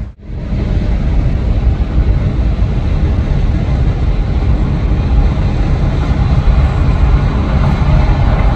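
Freight train of hopper and tank cars rolling past, a steady, even rumble with no horn or engine note standing out. The sound dips briefly right at the start where the footage cuts.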